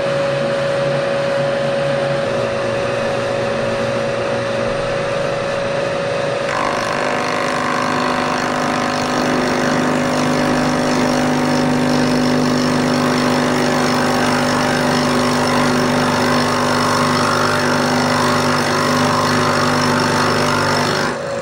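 Bridgeport milling machine running, its end mill cutting a flat on the end of a pin as the table feeds along. A steady whine takes on more tones about six and a half seconds in.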